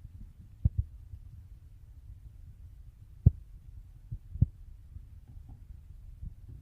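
A low steady hum with a handful of short, dull knocks: a quick pair about a second in, the loudest a little past three seconds, two more soon after and one near the end.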